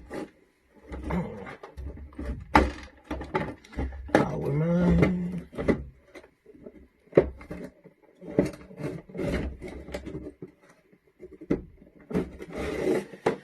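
Hands working on a condensate pump and its fittings: irregular knocks, clicks and rubbing of plastic parts being handled and moved.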